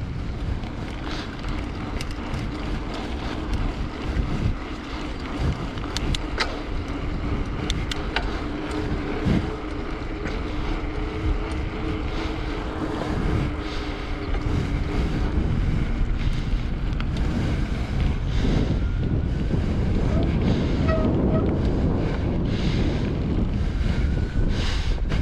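Wind rumbling on the microphone, with a faint steady hum through much of it and a few light clicks.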